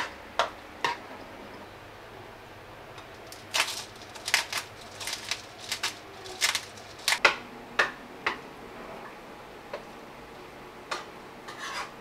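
Metal spoon clinking and scraping against a ceramic bowl while mashing and stirring avocado, tomato and onion, in irregular short clicks that come thickest in the middle.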